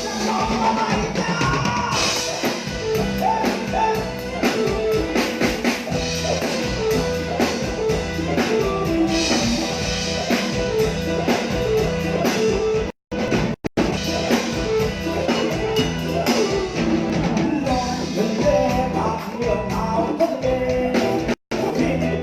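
Live band music: a drum beat under a melodic lead line. The sound cuts out briefly twice around the middle and once near the end.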